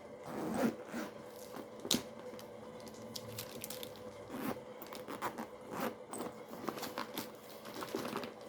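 A handbag being handled and rustled: scattered short rustles, scrapes and clicks of its fabric, zipper and fittings, with one sharper click about two seconds in.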